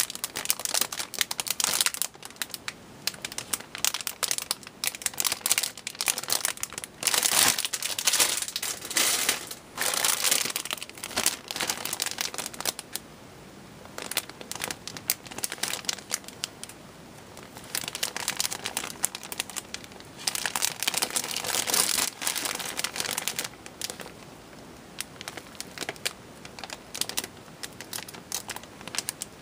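Clear plastic bags holding model-kit parts runners crinkling as they are handled and turned over, in irregular bursts with a few brief quieter pauses.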